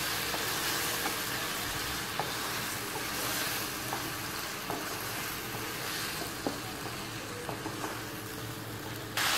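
Okra sizzling as it stir-fries in hot mustard oil, with a wooden spatula scraping and knocking against the pan in scattered clicks. The sizzle steps up suddenly just before the end.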